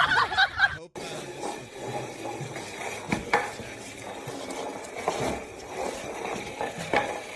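A short, loud pitched voice-like sound that cuts off within the first second. Then a dog drags a paper-wrapped potted plant across a tiled floor: rustling and scraping, with a few sharp knocks.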